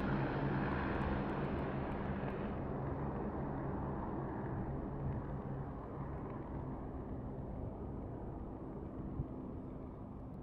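AgustaWestland AW109S Grand twin-turboshaft helicopter (two Pratt & Whitney Canada PW207C engines) flying away after takeoff. Its steady low rotor hum fades gradually as it climbs into the distance.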